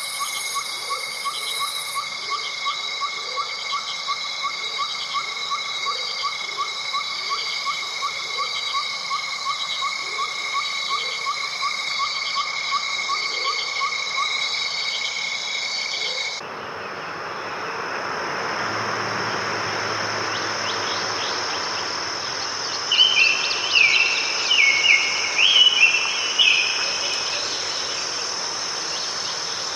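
Chorus of crickets and other insects: several steady high trills, with a fast ticking chirp of about three pulses a second. About halfway through, it cuts suddenly to a soft rushing noise with a single high insect trill. Near the end a bird calls loudly in a few quick bursts of short repeated notes.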